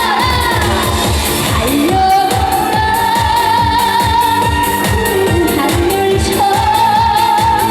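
A singer holding long sung notes over pop backing music with a steady beat.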